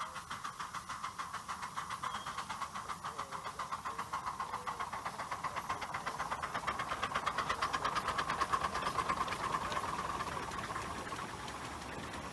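Light-railway steam locomotive chuffing as it hauls the train, a steady beat of about four to five exhaust puffs a second that grows louder. Near the end the beats give way to a steadier hiss.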